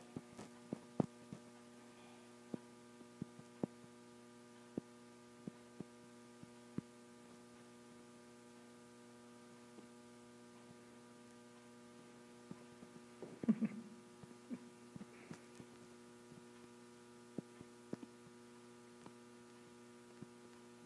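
Steady electrical mains hum, with scattered faint clicks and knocks and one brief, louder low sound about two-thirds of the way through.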